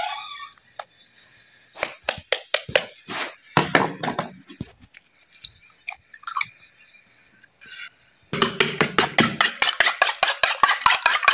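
Dishes and utensils clinking, then from about eight seconds in an egg being beaten in a bowl, the utensil clicking rapidly against the sides, about eight strokes a second.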